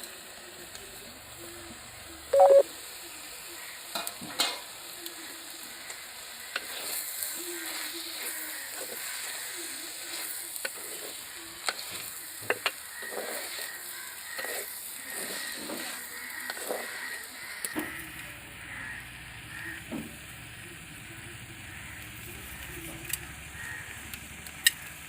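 Meal maker and capsicum curry sizzling in a clay pot while being stirred, the spoon scraping and knocking against the pot many times. One louder knock about two and a half seconds in.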